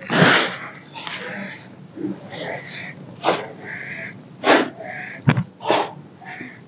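Hands squeezing and crushing a pile of yellow-dyed baking soda powder: a series of short crunchy bursts about a second apart, the loudest at the very start, with one sharp click a little after five seconds.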